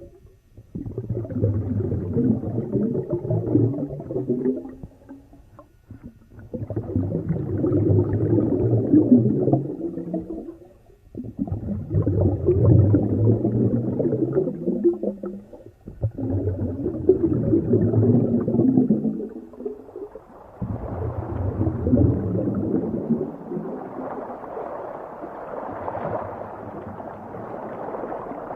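Underwater bubbling and gurgling, low-pitched, in four bursts of about four seconds each with short breaks between, then a steadier, hissier rush of water in the last third.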